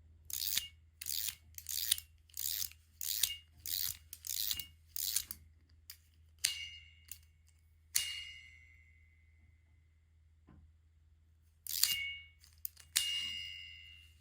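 HIDEDC multi fidget desk toy being worked: about nine quick rasping strokes in the first five seconds, then a small bell on it struck four times, each ding ringing out with two clear tones.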